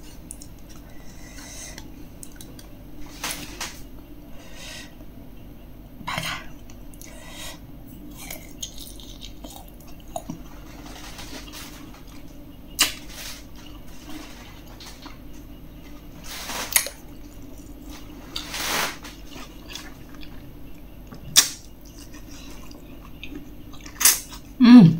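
Close-miked eating of juicy pickled fruit dipped in chili-salt: separate wet bites and slurps every few seconds, with spoon clinks against the plate. Near the end there is a short hum of 'mm'.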